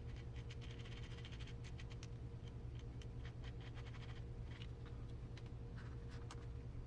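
Light, irregular clicks and scratches of small RC gearbox parts being handled and fitted together by hand, over a steady low hum.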